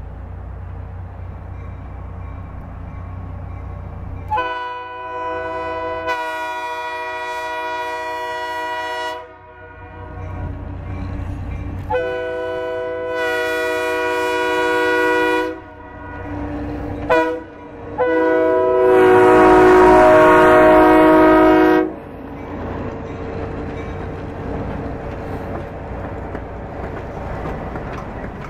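Diesel locomotive's multi-chime air horn sounding the grade-crossing signal: two long blasts, a short one and a final long, loudest blast. The locomotive's engine rumbles as it approaches, and the passenger coaches roll past on the rails afterwards.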